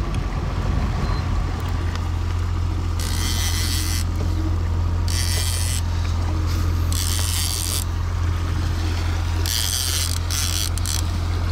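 Suzuki outboard motor running steadily at trolling speed, a constant low drone. Over it come four separate bursts of high hissing, each about a second long.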